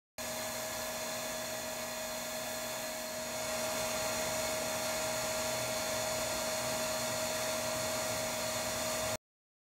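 Bee vacuum motor running with a steady whine over a rush of air, getting slightly louder about three and a half seconds in and cutting off suddenly near the end.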